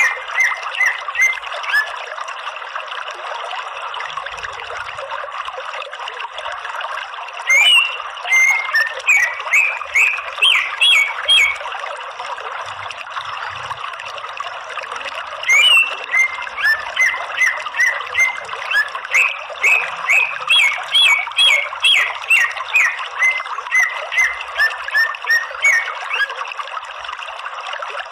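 Greater green leafbird (cucak ijo) calling: bouts of short, quick notes, about three a second, broken by pauses of a few seconds, over a steady rushing background noise.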